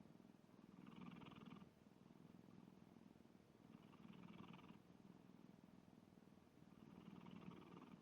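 Domestic cat snoring faintly in its sleep, with three slow breaths about three seconds apart over a steady low rumble.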